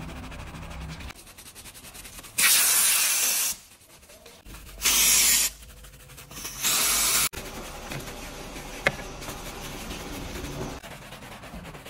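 Three short, loud hissing bursts from a hose-fed pressurized cleaning nozzle blasting a soapy car seat frame, each starting and stopping abruptly, with quieter brush scrubbing between them and a single sharp click near the end.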